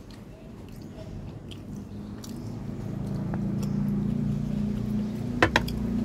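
A person chewing food close to the microphone, with faint mouth clicks, while a low engine rumble builds up from about two seconds in. Two sharp clicks come near the end.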